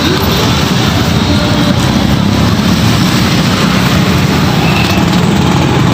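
Road traffic close by: vehicle engines running with a steady, loud mix of engine hum and road noise.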